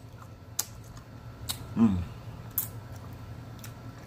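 Wet mouth sounds from eating hot-sauced chicken feet: four sharp lip smacks or chewing clicks about a second apart, with a brief falling hum around two seconds in.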